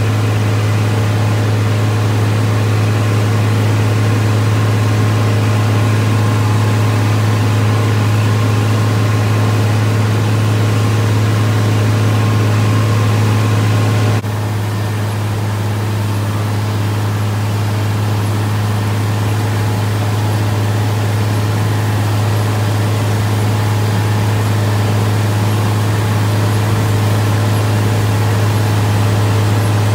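Farm tractor engine running at a steady pace under load as it pulls a planter, a constant deep hum. About halfway through there is a click, and the sound is slightly quieter after it.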